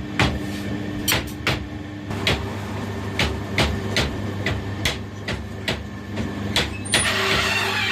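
Hammer blows on the steel of a truck drive shaft being straightened, about two sharp strikes a second, over a steady machine hum. Near the end the strikes stop and a steady rough hiss takes over.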